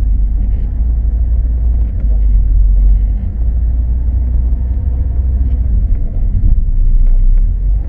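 A 2012 Ford Focus on the move, giving a steady, loud, low rumble of road and running noise.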